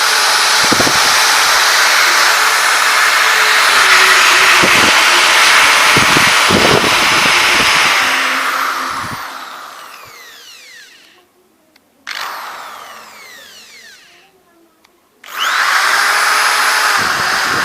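Cheap 10 mm, 350-watt corded electric drill running at full speed, then released and winding down with a falling whine. A short blip of the trigger about 12 seconds in winds down again, and near the end it starts up at full speed once more.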